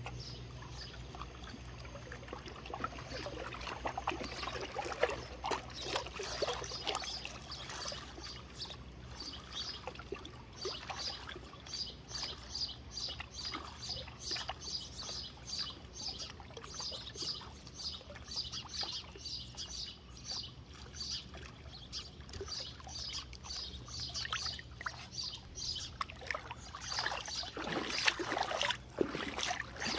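Puppy splashing in shallow lake water at the shoreline: a run of small, rhythmic splashes and drips, about two or three a second, with a few louder splashes near the end.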